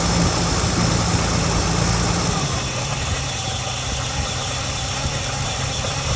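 BMW E30 engine idling, its note dropping a little about two and a half seconds in, with a faint high steady tone above it: the whistling, grinding noise the car is being checked for.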